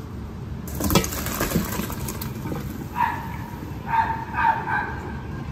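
Blanching water and broccoli poured from a stainless steel pot into a metal colander in a sink: a rush of draining water starts about a second in, with a knock and then several short clinking, ringing sounds from the metal pot and colander.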